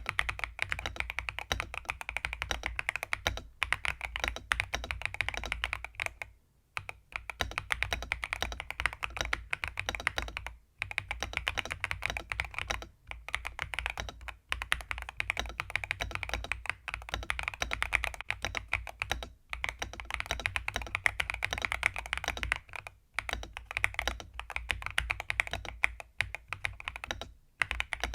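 Fast continuous typing on a mechanical keyboard fitted with pre-lubed Gateron Smoothie linear switches, with short pauses every few seconds.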